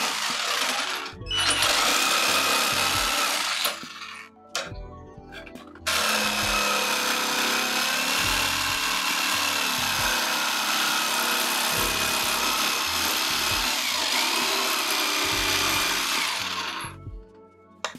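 Electric jigsaw sawing through a wooden board, its motor running with a steady whine. It cuts for about four seconds, stops briefly, then cuts again steadily for about eleven seconds before stopping near the end.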